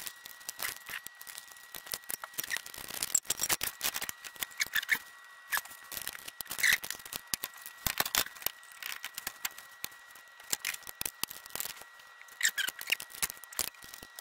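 Hand ratchet and socket loosening a turbo pedestal bolt: irregular sharp metal clicks and clinks, with a faint steady high whine underneath.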